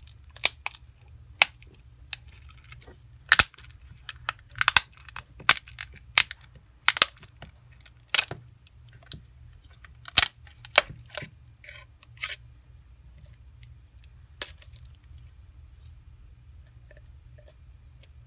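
Sharp cracks, snaps and clicks as the glued screen assembly of a Samsung Galaxy Note 4 is pried off the phone's frame. The snaps come thick for about twelve seconds, then thin out to a few, over a low steady hum.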